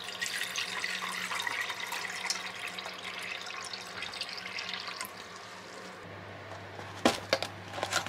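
Water poured in a steady stream into a stainless steel saucepan, filling it, for about the first five seconds. Near the end come a few sharp clicks and knocks, with a low hum starting just before them.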